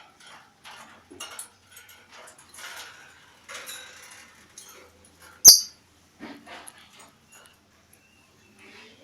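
Pet lovebird making a string of short, scratchy chirps and chatter, with one very loud, sharp shriek about five and a half seconds in.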